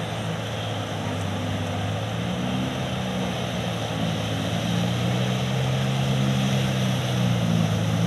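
Motorcycle engines running as they ride through floodwater, getting a little louder and higher toward the end, over a steady rush of water pouring across the causeway.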